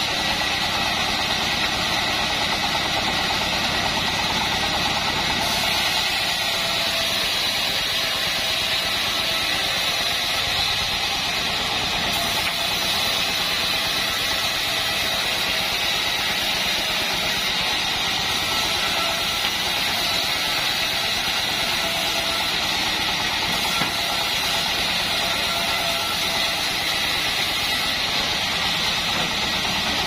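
Homemade bandsaw mill running steadily, its blade ripping a long wooden strip fed along the roller table.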